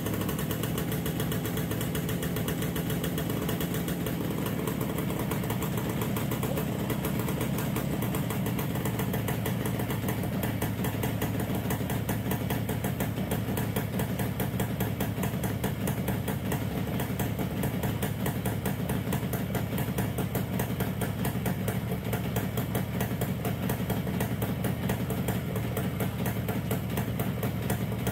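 1969 Yamaha DS6's two-stroke parallel-twin engine running steadily at idle, warming up after a cold start.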